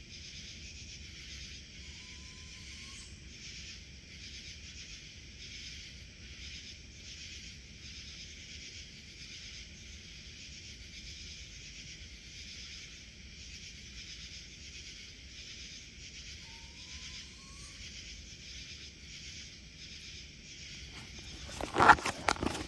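A dense summer chorus of insects: a steady, high, rhythmically pulsing buzz. A short rising whistle comes twice, once early and once around two-thirds through. Near the end, loud crunching footsteps in the undergrowth.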